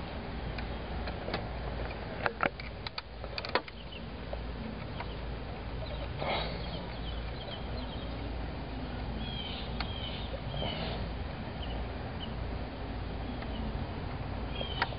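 A few sharp metallic clicks and clinks of hand tools against engine parts, with birds chirping faintly in the background over a steady low hum.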